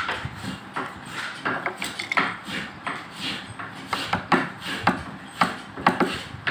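Carving chisel cutting into solid akashmoni (acacia) wood in repeated short strokes: sharp knocks and slices, irregular, about one or two a second.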